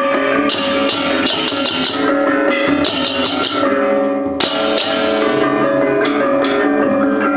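Instrumental music with drums and repeated crashing cymbal strokes over sustained pitched tones, briefly dropping out a little past halfway.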